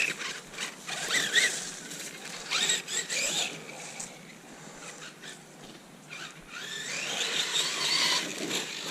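Losi Lasernut RC car's electric motor and drivetrain whining in short throttle bursts, pitch rising as it speeds up, with a longer rising whine near the end.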